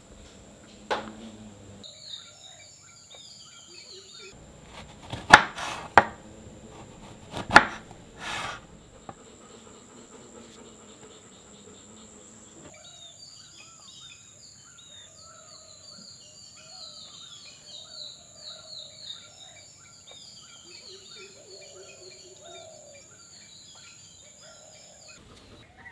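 Birds chirping over a steady high insect drone. A few sharp knocks sound in the first third, the loudest a pair about two seconds apart.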